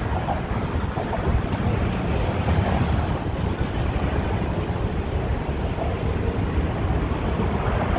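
Wind buffeting the microphone over the steady rumble of car traffic crossing the bridge's roadway.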